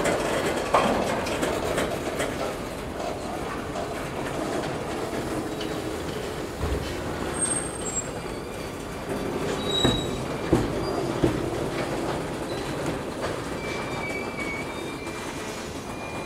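Tank cars of a slow-moving freight train rolling past: a steady rumble of wheels on rail, with a few sharp clanks near the middle and several brief, faint, high-pitched wheel squeals.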